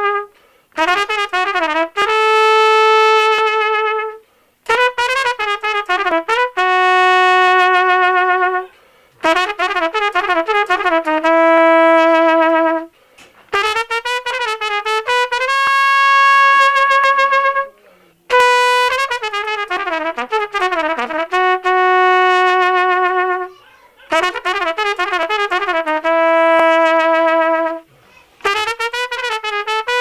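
Solo trumpet playing a melody in phrases: each begins with a quick ornamented run and settles on a long held note, with brief breaks between phrases.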